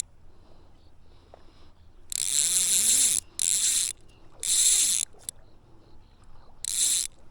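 Fly reel's click-and-pawl drag ratcheting in four separate bursts, the first lasting about a second, as a hooked trout is played on the line.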